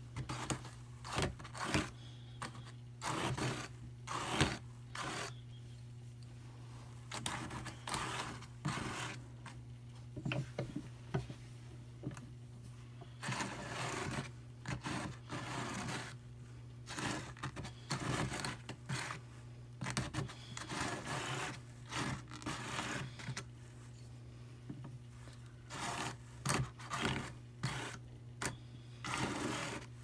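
Brother hand-crank drum carder turning, its fine-toothed metal carding cloth raking through Targhee wool blended with Angelina sparkle: dry, scratchy rasping strokes in uneven bursts, some single and some in quick runs, over a steady low hum.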